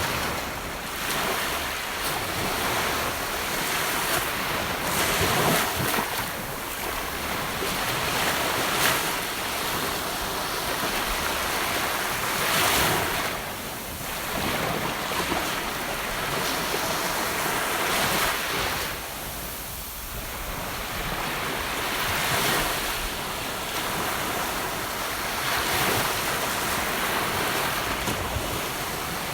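Gentle ocean waves washing onto a beach, a steady rush of surf that swells and eases every few seconds as each wave breaks and draws back.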